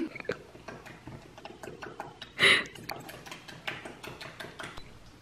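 Metal spoon clicking and scraping against a small bowl as egg-white and oat-flour batter is mixed by hand, in quick irregular clicks. A short, louder noise comes about halfway through.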